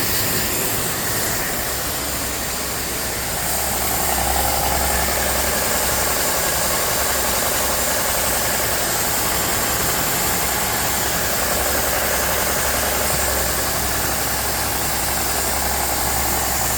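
Freshly overhauled belt-driven three-piston high-pressure washer running steadily, with a low hum under a continuous machine noise; about four seconds in its sound shifts and grows a little louder.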